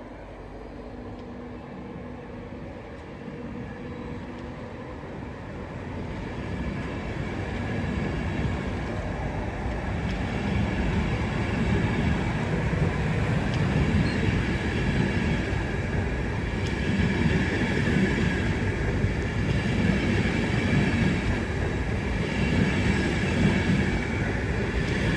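An InterCity 225 train, a Class 91 electric locomotive with Mk4 coaches and a Driving Van Trailer, pulling out of the station and passing close by. The rumble and wheel noise grow louder over the first ten seconds as it gathers speed. Then a regular clatter comes about every two seconds as the coaches roll past.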